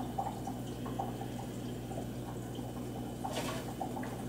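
Low steady hum with faint, irregular light ticks, and a brief rustle a little after three seconds in.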